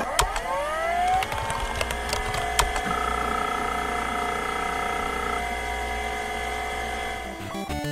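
A small motor whining, rising in pitch over the first second and then running steady, with a few sharp clicks.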